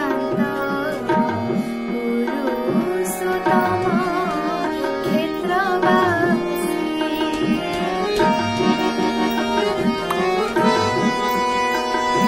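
Indian-style music: tabla playing a steady rhythm, its bass drum strokes sliding in pitch, under a wavering, ornamented melody line. Steady held notes come in near the end.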